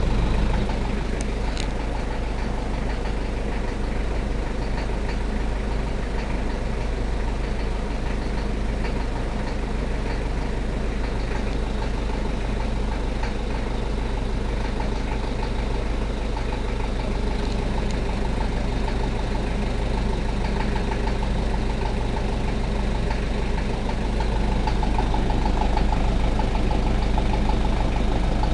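Toyota 1KZ-T four-cylinder turbodiesel idling steadily with an even diesel clatter, getting slightly louder near the end; the owner is showing it for an engine noise that concerns him.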